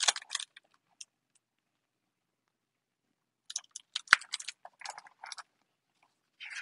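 Hardcover picture book being handled: rustling and crinkling of its pages and cover, in a short spell at the start and a longer one from about three and a half seconds in, with a sharp tap just after four seconds as the book is turned back around.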